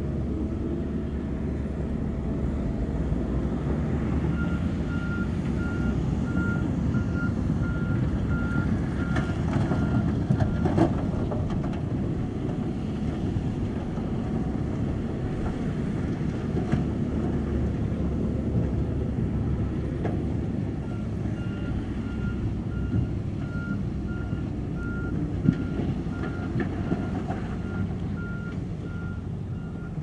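Diesel earthmoving machinery running, with a reversing alarm beeping in a steady repeated tone from about 4 to 11 seconds in and again from about 21 seconds in, as a heavy machine backs up. A couple of sharp knocks stand out over the engine noise.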